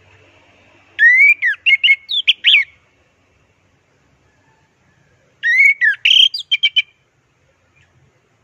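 Orange-headed thrush (anis merah) singing two short song phrases a few seconds apart, each under two seconds of quick rising and falling notes.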